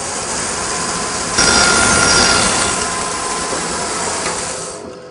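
Bandsaw blade cutting through a melamine-faced particleboard scrap in a test cut of the fence's drift setting: a loud, dense rasp that gets louder with a thin squealing tone about a second and a half in, then dies away near the end.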